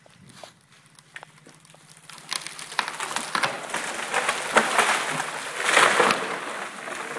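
A tree coming down: a rising run of wood cracking and branches snapping and crashing through other branches. It starts about two seconds in and is loudest near the end.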